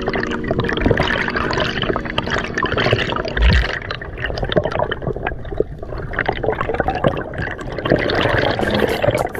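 Underwater water noise, a dense rushing and bubbling heard through a waterproof camera housing while a diver moves up through the water, with scattered clicks and knocks.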